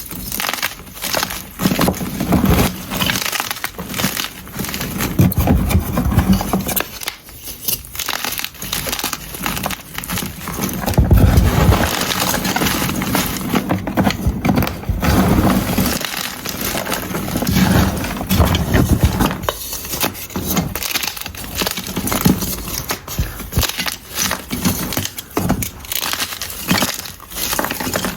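Blocks of unpolished gym chalk being crushed and crumbled close to the microphone: dense, crisp crackling, with heavier crunches now and then, the biggest about eleven seconds in.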